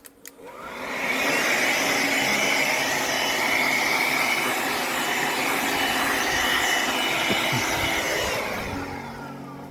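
A motor-driven air blower running in a steady rushing blast, spinning up over about a second and winding down near the end, used to blow bees off the outside of a wall.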